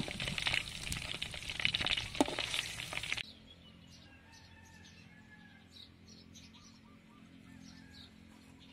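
Pork ribs deep-frying in hot oil in a wok: a loud sizzle and crackle with a few sharp clicks. It cuts off suddenly about three seconds in, leaving a quiet background with faint bird chirps.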